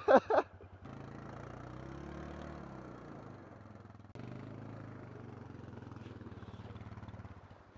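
Yamaha XT225 dirt bike's single-cylinder engine idling steadily, with another engine faintly rising and falling in pitch about two seconds in.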